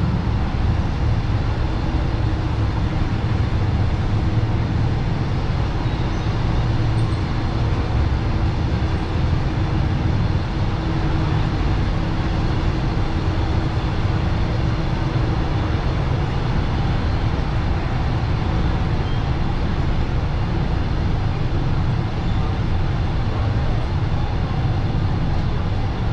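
Steady, deep rumble of busy city road traffic, with no single vehicle standing out. A faint steady hum sits over it for about ten seconds in the middle.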